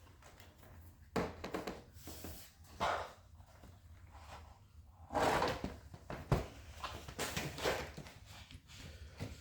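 Handling noises as a drilled wooden fridge door is turned over on a work surface: a few scattered knocks, scrapes and rustles, with one sharp click a little after the middle.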